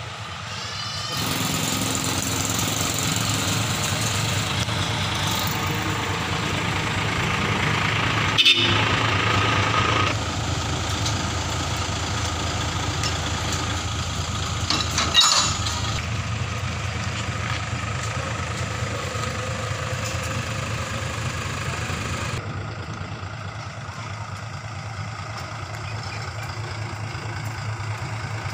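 Diesel engine of a Mitsubishi Fuso Fighter truck running steadily as the truck creeps along at low speed. Two short sharp knocks come through, about eight and fifteen seconds in.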